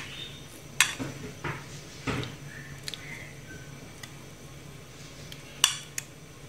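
Metal kitchen tongs clicking against a ceramic plate a few times as a flour-coated piece of fish is dipped and turned in beaten egg, with soft wet sounds of the fish in the egg.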